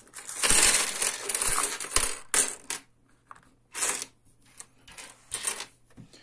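A pile of coins poured from a small leather coin purse onto a wooden table, clattering and jingling for about two seconds. After that come a few short clinks as the coins are pushed and spread across the table.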